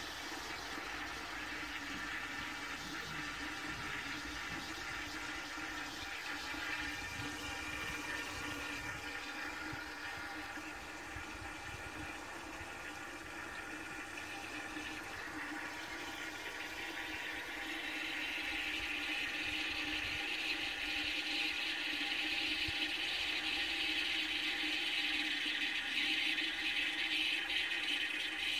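Restored 2-gallon cast-iron high-level toilet cistern refilling through its high-pressure float valve: a steady hiss of water running in, growing louder and brighter about eighteen seconds in.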